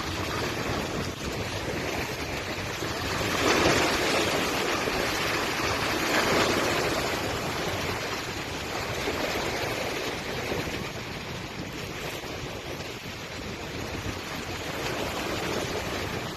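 Rushing water noise, swelling louder about three and a half seconds in and again about six seconds in.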